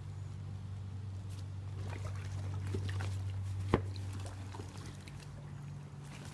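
Pool water sloshing and trickling as a yellow Labrador clambers into an inflatable kiddie pool floating on a swimming pool, over a steady low hum. A single sharp knock comes a little under four seconds in.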